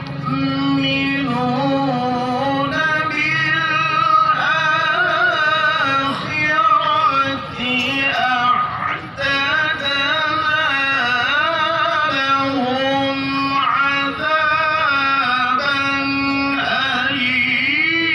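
A male qari reciting the Quran in the slow, melodic contest style, drawing out long held notes with wavering ornaments and slides in pitch. There is a short break in the line about eight to nine seconds in.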